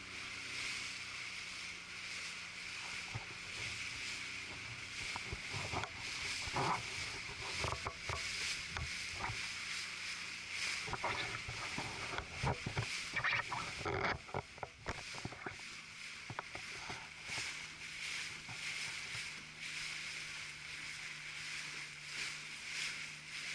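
Water sloshing and splashing around a small fishing boat, with irregular knocks and clatter and a faint steady low hum.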